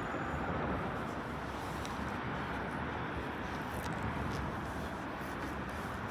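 Steady rumble and hiss of a moving vehicle's road noise, even throughout with no distinct events.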